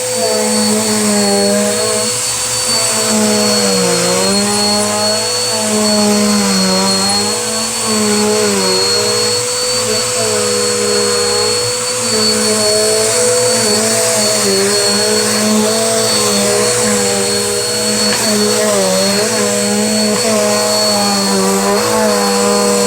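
Vacuum cleaner running, its motor drone dipping in pitch and recovering again and again, with a steady high whine over it.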